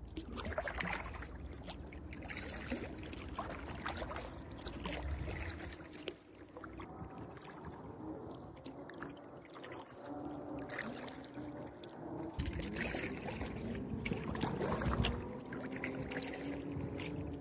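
Kayak paddle strokes dipping and splashing, with water trickling off the paddle blades.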